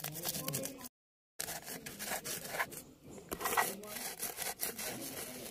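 Whole black and white peppercorns and cumin seeds being crushed by rubbing a hand-held stone back and forth over them on a stone slab: gritty scraping and crunching in irregular strokes. The sound drops out completely for about half a second a second in.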